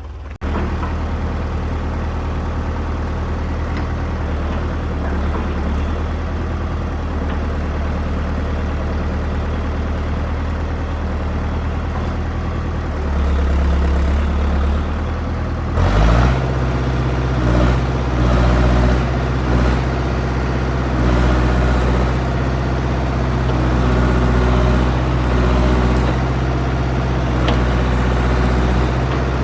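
Old backhoe's engine running steadily at low speed, then throttled up about sixteen seconds in, after which it rises and falls in loudness as the machine works.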